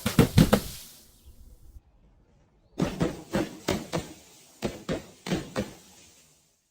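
Sharp cracking impacts of objects being crushed and broken. A quick cluster comes at the start, then after a short pause about a dozen more cracks come in small groups.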